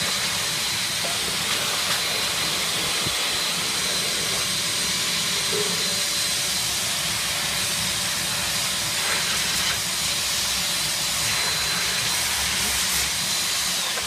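Cheap ash vacuum cleaner running flat out: a loud, steady rush of air with a high motor whine over it. The whine starts to drop away at the very end as it winds down.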